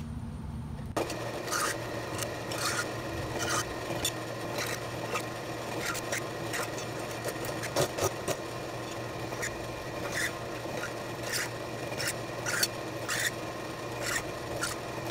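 Cobalt step drill bit in a small milling machine run as a drill press, cutting holes in steel flat bar. A steady machine hum runs under a rasping cutting noise that starts about a second in, with short sharp scrapes every second or so.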